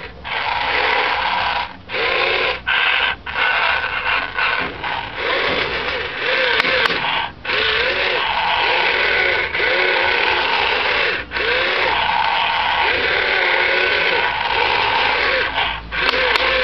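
Toy radio-controlled wheeled excavator's small electric motors and gearboxes whirring as the boom and bucket dig sand. The whir cuts out for a moment many times and starts again, with a whine that rises and falls in short arcs.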